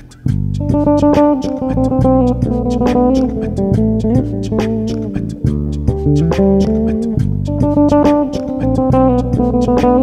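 Cunningham RLJ6 six-string electric bass played fingerstyle, a busy melodic line with several notes sounding together and a held low note a little past the middle. The playing breaks off for a moment right at the start, then carries straight on.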